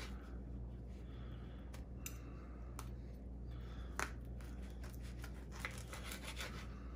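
Table knife sawing through the casing of a smoked sausage held with a fork, with sharp clicks of the blade and fork against a wooden cutting board, the loudest about four seconds in.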